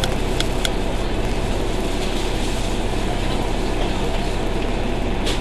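Bus standing still with its engine idling and radiator cooling fan running, a steady whir over a low hum heard from inside the cabin, with a couple of light clicks within the first second.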